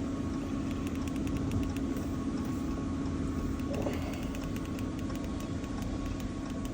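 Steady running hum of a 2020 Ram pickup, with a faint thin tone held throughout.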